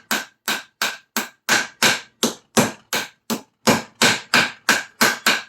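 Steady hammer blows, about three a second, beating a heated copper strip flat, each strike with a short metallic ring. The copper is hammered hot, after being heated until it changes colour and becomes malleable.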